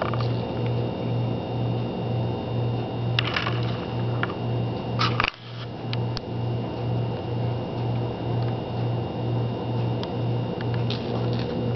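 Steady low machine hum that pulses about four times a second, with a few short clicks and rustles. A brief dip in level comes about five seconds in.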